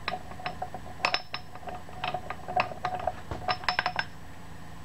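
Small steel gear and shaft from a Clausing lathe apron clinking and clicking against each other as they are fitted together by hand: a run of light metallic clicks with a short ring, stopping about four seconds in.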